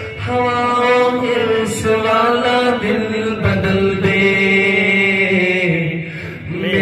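A man singing a naat into a microphone, drawing out long sustained notes between the lines of text, with a short pause for breath near the end.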